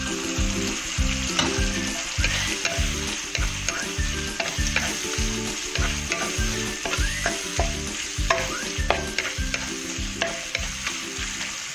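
Shrimp, onion and garlic sizzling in hot oil in a wok while a wooden spatula stirs and scrapes the pan in quick, repeated strokes, with small knocks of the spatula against the pan.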